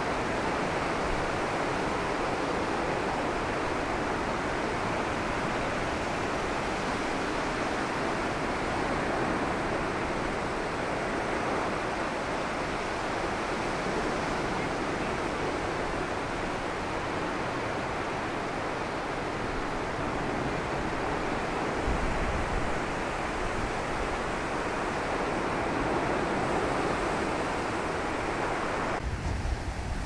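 Steady rush of strong wind and breaking lake waves, with gusts buffeting the microphone as a low rumble that grows heavier about two-thirds of the way through and again near the end.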